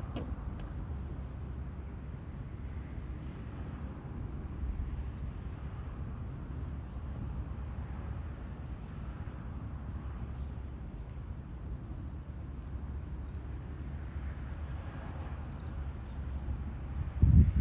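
Outdoor field ambience: a steady low rumble with a short, high chirp repeating a little more than once a second, and a single loud knock just before the end.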